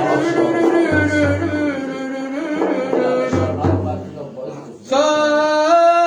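Middle Eastern popular music between sung lines: melodic accompaniment over low bass pulses that come about every second and a half. A loud, held, slightly wavering melodic note comes in about five seconds in.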